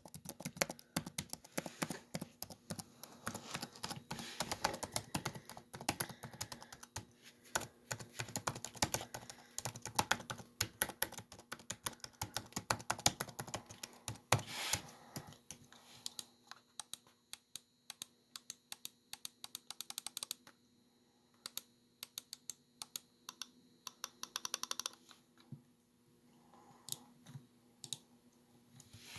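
Laptop keyboard typing: quick, dense runs of key clicks for about half the time, then slowing to scattered single clicks and taps.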